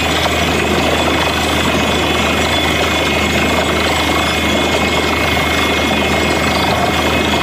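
Truck-mounted borewell drilling rig running steadily at work: a loud, unbroken engine-and-compressor drone with a low hum underneath, while the bore blows out muddy water.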